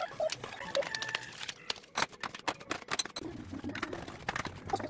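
Light, quick clicks, taps and rustles of hands handling food packaging: a plastic food pack taken out of a fridge, then eggs set into a clear plastic egg tray.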